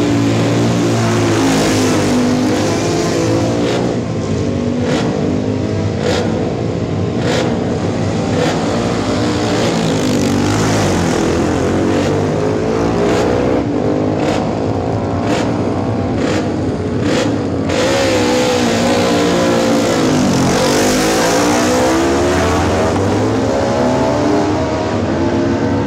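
Several classic racing motorcycle engines running and revving hard together at the start line, with pairs of bikes accelerating away about every ten seconds, their engine notes climbing as they pull off. A quick string of sharp cracks runs through the middle.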